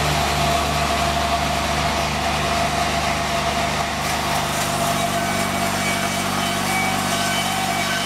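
Vertical band sawmill running steadily, its engine droning under the noise of the running blade; the low drone changes about halfway through.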